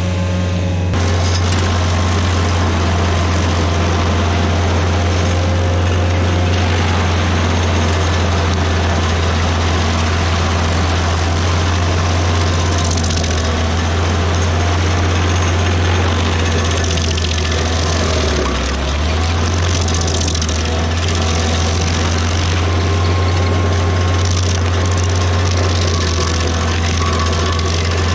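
A large engine running steadily at constant speed with a deep even hum, dipping briefly about two-thirds of the way through.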